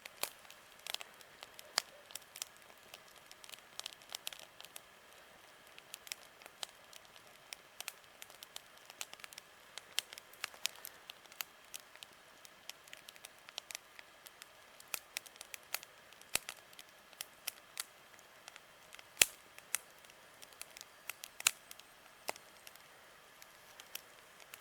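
Wood fire crackling, with irregular sharp pops and snaps over a faint steady hiss.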